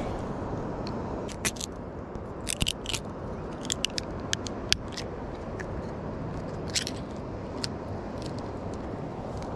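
Small sharp clicks and crackles from hands handling a high-low fishing rig on the line, bunched in the first half with a few more later, over a steady background hiss.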